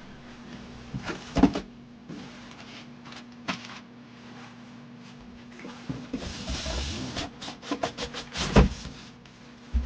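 Box packaging being handled: a few sharp knocks, and a stretch of crinkling and crackling about six seconds in. A louder knock comes near the end.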